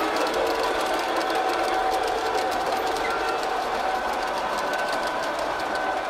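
Model train running on the layout track: a steady electric-motor whir with a few held tones, over fine, rapid clicking of wheels on the rails.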